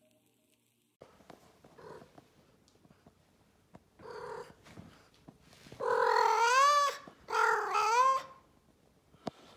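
Blue Maine Coon cat vocalising: a short call about four seconds in, then two long meows one after the other, their pitch wavering up and down.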